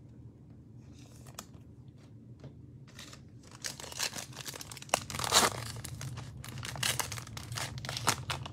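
Foil wrapper of a football trading-card pack being torn open and crinkled by hand. It is faint handling at first, then crackling from about three and a half seconds in, loudest as the wrapper tears about halfway through.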